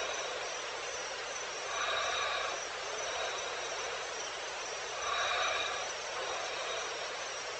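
Evening outdoor wildlife ambience: a steady high hiss of insects, with a call that swells and fades twice, about three and a half seconds apart. No lion roar.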